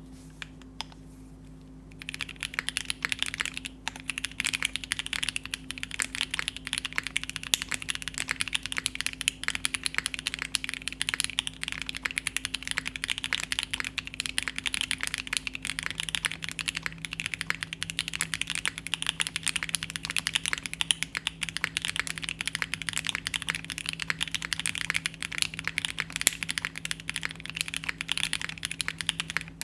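Steady, fast typing on a Keycult No.2 65% mechanical keyboard with Tecsee Carrot switches lubed with Krytox 205, an aluminium plate, no sound dampening and GMK keycaps; the clicks of the keys begin about two seconds in. A faint steady hum sits underneath.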